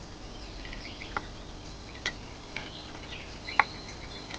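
Outdoor nature ambience with faint, scattered bird chirps and a few sharp ticks, the loudest about three and a half seconds in.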